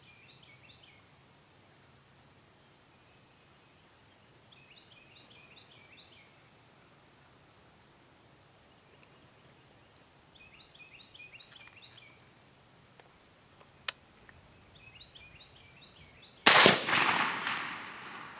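A single suppressed rifle shot, sudden and loud, with its report rolling away and fading over about two seconds. Before it, small birds sing short repeated phrases and a single sharp click sounds.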